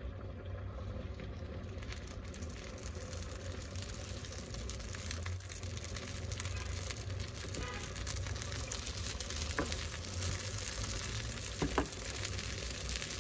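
Small batter pancakes frying in fat on a nonstick pan: a steady sizzle that grows denser partway through. There are two short clicks near the end.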